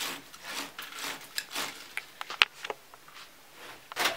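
Polyester-braided helical fish tape being pushed by hand through a conduit already holding wires, rasping in short strokes about every half second. There are a few light clicks, and one sharp click about two and a half seconds in.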